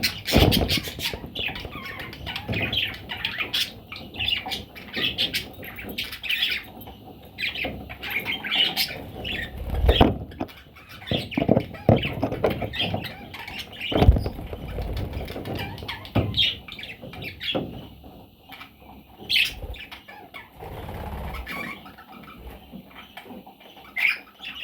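Pet budgies chirping and chattering throughout, with occasional thumps and wing-flapping noises, the loudest about ten and fourteen seconds in.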